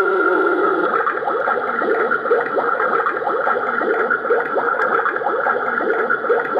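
Buzzing, crackling spooky sound effect played through the small built-in speaker of a Halloween sound-effect flashlight. It runs steadily, a dense crackle over a constant tone.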